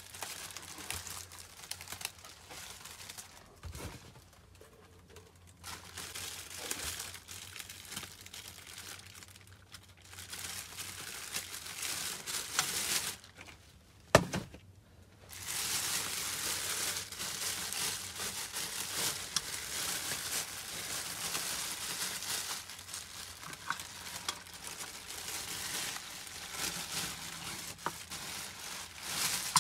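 Clear plastic packaging bag crinkling and rustling as it is pulled off a newly unboxed air abrasion unit, in bursts with short pauses. One sharp knock about halfway through.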